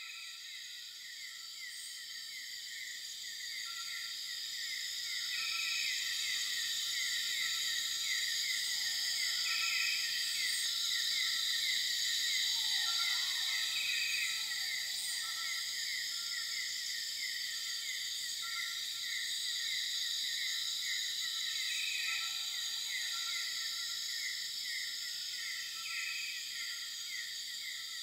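Nature ambience of insects chirping in a steady chorus, led by a rapid pulsing chirp of about four a second, with a few short calls scattered through. It swells up over the first few seconds.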